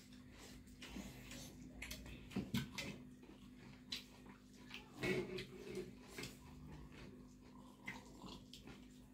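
Eating sounds: chewing and lip-smacking while fingers work rice on metal plates, a run of small clicks and wet smacks, louder about two and a half and five seconds in.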